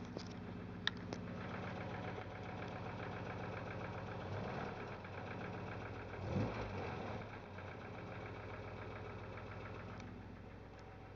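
MGB's four-cylinder engine idling at tickover with a deeper, fairly slow clacking running through it. The owner suspects something in the cam drive, maybe a cam follower, or the distributor. There is a single sharp click about a second in, and a brief louder surge about six and a half seconds in.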